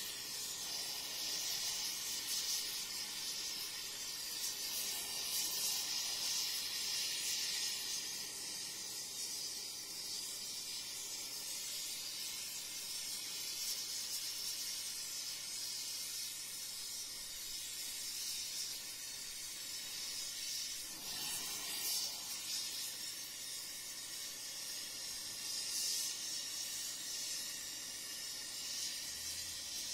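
Carbon arc torch held on the steel of a warped excavator stick, giving a steady hiss that swells and eases a little, as it heats the metal for reshaping.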